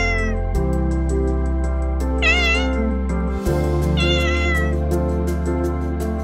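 A cat meowing: the end of one call right at the start, then two more meows about two and four seconds in. They come over soft background music with a light steady beat.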